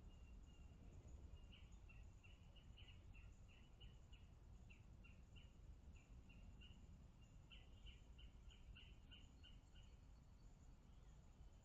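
Faint outdoor ambience: a run of short high chirps, about three a second, starting about a second and a half in and stopping near the end. Underneath are a steady high whine and a low rumble.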